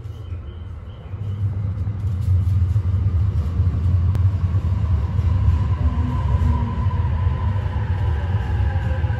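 JR East E257-500 series limited express train pulling into the station: a deep rumble that builds about two seconds in, with a gently falling whine as it slows, heard through window glass.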